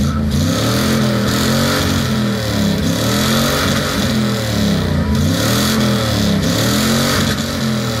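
1962 Ford F-100 pickup's engine being revved repeatedly, the pitch rising and falling about once a second.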